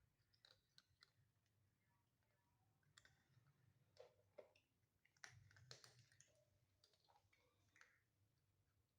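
Cats crunching dry cat food: faint, scattered clicks and crunches, a little louder around four to six seconds in.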